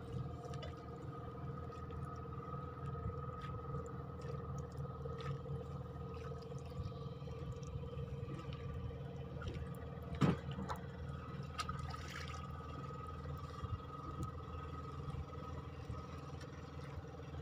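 Small boat engine running steadily at idle, a low hum with a faint steady higher tone. Scattered light knocks of gear and fish being handled on the boat, one louder about ten seconds in.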